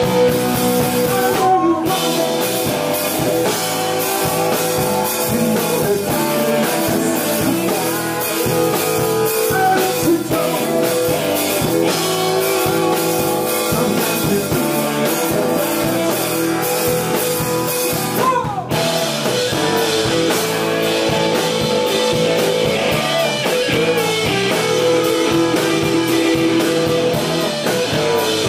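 A rock band playing live on electric guitars and a Sonor drum kit, with sustained guitar notes over steady drumming. There is a brief break about two-thirds of the way through before the full band comes back in.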